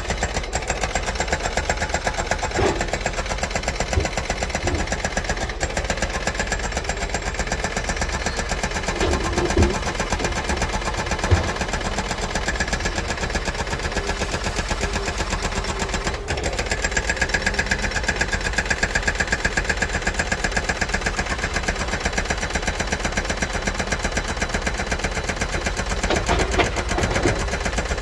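Doosan 255LCV excavator's diesel engine running steadily with a fast, even pulse. Occasional short knocks and clatter of concrete debris are heard, and a higher whine comes in past the middle.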